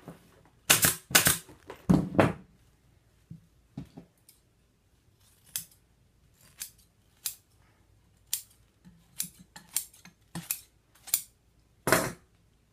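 Upholstery scissors snipping through chair padding, about fifteen separate cuts at an uneven pace, the loudest a second or two in and again near the end.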